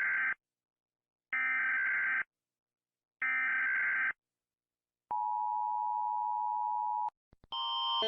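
United States Emergency Alert System broadcast: three screeching SAME digital header bursts, each about a second long with a second's gap between them, then the steady two-tone attention signal (853 and 960 Hz) for two seconds. Near the end a different, louder alternating alert tone starts.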